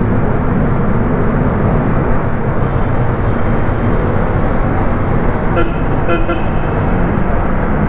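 Motorcycle running through a road tunnel: a steady, loud rumble of engine, road and wind noise, boomy from the tunnel walls. A vehicle horn toots twice, briefly, about five and a half to six seconds in.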